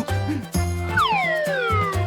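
Upbeat children's background music with a light bouncy beat, joined by a long falling whistle-like cartoon sound effect from about a second in.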